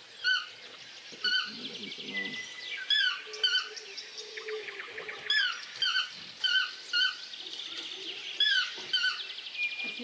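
Toucan calling: short yelping notes that hook downward at the end, mostly in pairs, repeated every second and a half or so. A faint, rapid ticking trill runs underneath.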